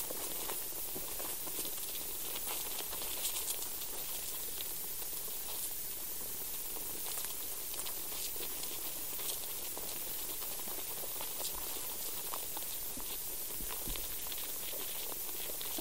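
Underground soil recording from a sensor in the ground: a steady hiss with a dense, irregular scatter of tiny clicks, crackles and scratches, the sounds of life and processes in the soil.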